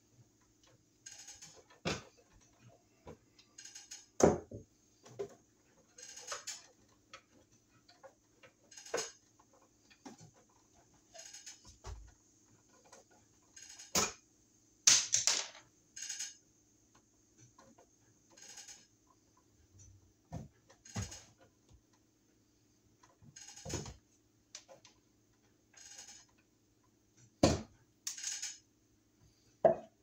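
Scattered clicks and metallic clinks of a hand tool and copper wire ends being worked at an electrical box, with short scratchy rustles between them and a few sharper knocks.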